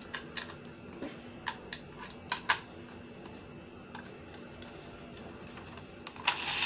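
Sharp plastic clicks and taps, several in pairs, as the battery cover is fitted onto a battery-powered toy monkey and the toy is handled. Just before the end the toy's small electric motor and gears start to whir.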